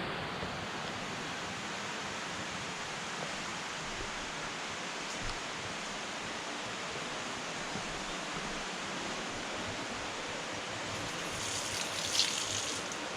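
Steady rushing of a mountain river running through a gorge. Near the end a brief scratchy sound rises above it.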